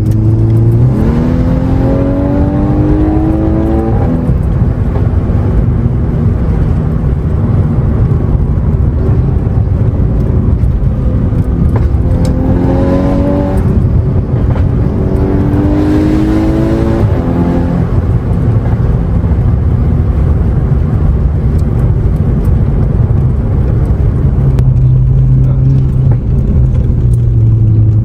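Volkswagen Golf R Mk6's turbocharged 2.0-litre four-cylinder engine, heard from inside the cabin, pulling hard three times with the pitch rising each time and then dropping at a gear change. Between the pulls and near the end it runs at a steady lower drone over continuous tyre and road noise.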